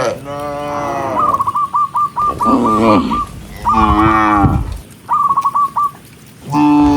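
Cattle mooing: several long, low moos one after another. Between them come two quick runs of short, high chirping notes.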